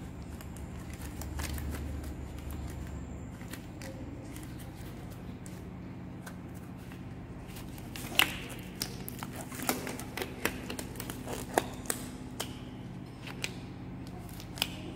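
Latex examination gloves being pulled on and adjusted: rubbery rustling and crinkling with a run of sharp clicks and snaps in the second half, over a steady low hum.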